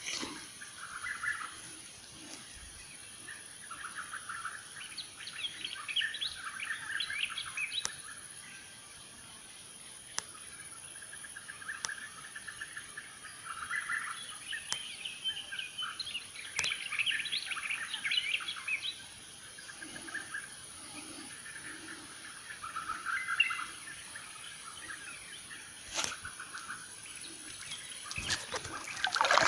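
Songbirds chirping in quick repeated bursts, in spells of a few seconds with short gaps between, over a steady high-pitched trill of crickets.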